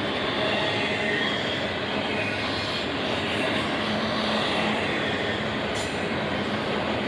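Union Pacific intermodal freight cars rolling past on the rails, a steady noise of wheels on track.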